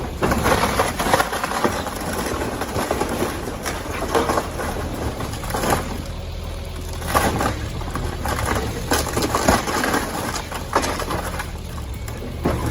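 Heavy demolition machinery running with a steady low engine drone, under repeated irregular crunching, cracking and clattering of broken building debris.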